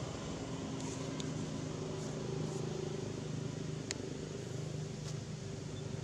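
A steady low motor hum, with a few faint clicks and one sharper tick about four seconds in.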